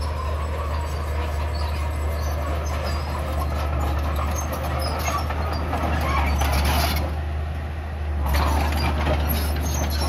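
Komatsu D31P crawler bulldozer's diesel engine running with its steel tracks clattering as it pushes rock and soil. The sound dips briefly about seven seconds in, then comes back louder.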